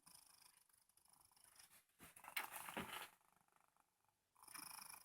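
Soft snoring of a sleeper, breath by breath: a louder snore lasting about a second starts about two seconds in, and a shorter one comes near the end.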